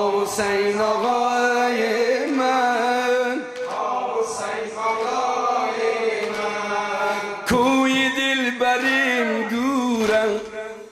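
A male reciter chanting a Persian nauha, a Muharram lament for Hussain, in long drawn-out held notes. A new phrase begins sharply about three-quarters of the way through.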